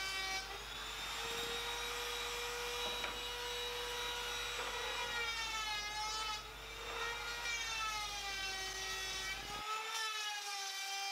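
Handheld trim router running as it cuts a 45-degree chamfer along the edge of a wooden strip. It gives a steady high motor whine whose pitch dips briefly a couple of times.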